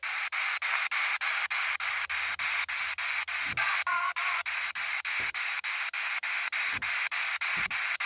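P-SB7T spirit box sweeping through radio frequencies: loud hissing static chopped about five times a second as it scans from station to station, with a brief tonal blip about four seconds in.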